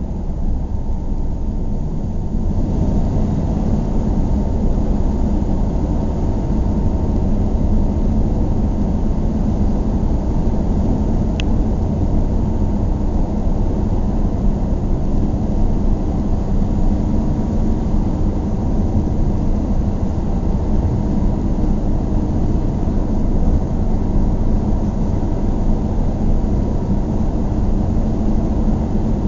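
Steady road and engine noise heard inside a moving car's cabin: a dense low rumble with a faint steady engine hum. There is one small light tick about halfway through.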